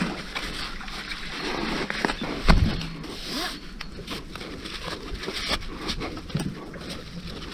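Climbing rigging being handled: rope and slings rustling, with scattered light clicks and one dull knock about two and a half seconds in.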